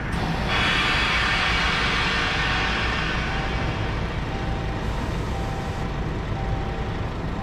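Compressed air hissing from a flatbed semi-trailer's air suspension as its sixth axle is raised on the lift-axle system. The hiss starts about half a second in and slowly fades, over a steady low rumble.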